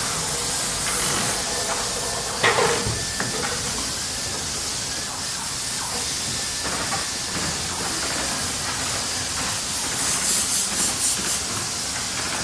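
Factory machinery ambience: a steady hiss of running machines. A single sharp knock sounds about two and a half seconds in, and a quick run of about six high hissing pulses comes near the end.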